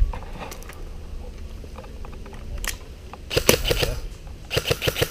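Close handling noise from a player shifting position in leaf litter: rustling, crackling dry leaves and small clicks of kit against the helmet-mounted microphone, with louder rustling twice in the second half and a low rumble of wind on the microphone underneath.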